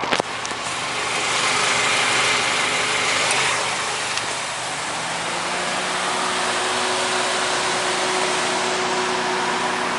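Car engine idling steadily, with a sharp click right at the start and a louder rushing for a couple of seconds about a second in.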